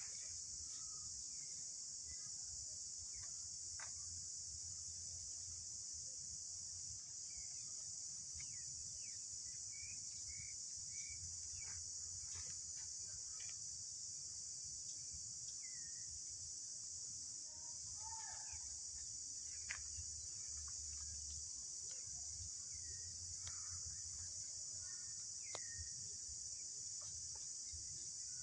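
Steady high-pitched drone of insects in the trees, with scattered short chirps and a few sharp clicks over it.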